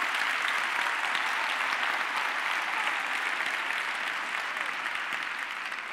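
Audience applauding, dying away slowly toward the end.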